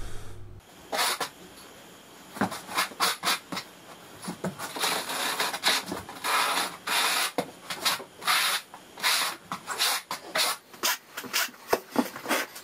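Notched trowel scraping and combing thinset mortar across a Ditra uncoupling membrane in repeated strokes that come quicker near the end. These are the strokes that fill the membrane's square depressions and rake the ridges for setting tile.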